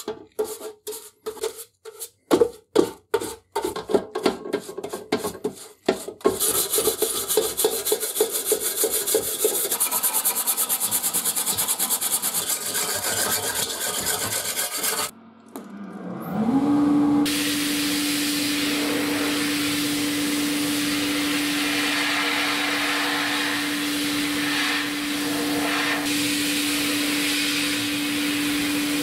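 A paintbrush dabbing paint stripper onto a painted sheet-metal scale housing, about two strokes a second, then fast continuous scrubbing of the softened paint. After a short break about halfway through, a sandblasting cabinet starts up with a hum that rises and then holds steady under an even hiss of blasting.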